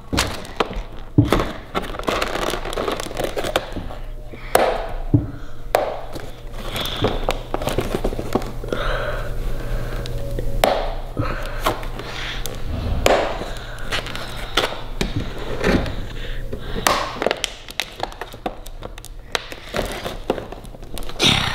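Hard clear plastic toy packaging being handled and pried open: irregular crinkling, clicks and taps of plastic, with occasional thunks as the package meets the table.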